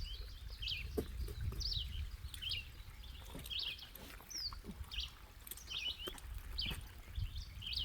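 A songbird calling with short, repeated chirps, one or two a second, over a low rumble and a few faint knocks.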